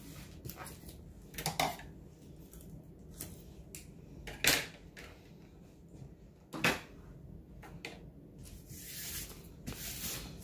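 Hands rubbing and pressing over a diamond painting canvas and its plastic cover film, smoothing down strips of washi tape: scattered rustles, three louder brushing strokes about 1.5, 4.5 and 6.5 seconds in, and a longer swishing rub near the end.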